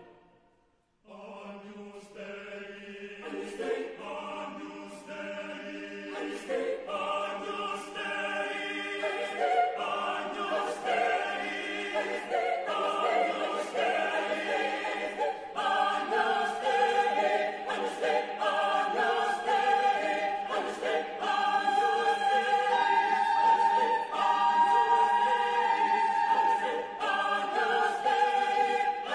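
Mixed chamber choir singing a Cordillera folk arrangement. After a brief silence about a second in, the voices enter over a low held drone and grow louder, with a high held note in the second half. Sharp percussive strikes come about once a second.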